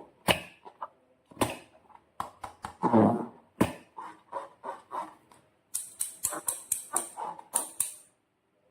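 Slime being worked by hand: an irregular series of wet clicks and squelches, with a fast run of sharp snapping clicks, about four a second, near the end.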